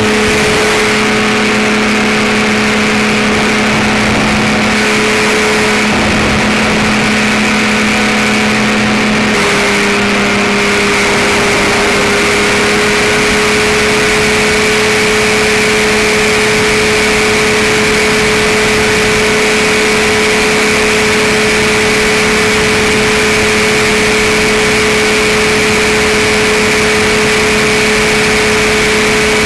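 Powered parachute's engine and propeller running steadily in flight, a loud constant drone. The tone shifts slightly lower about nine seconds in.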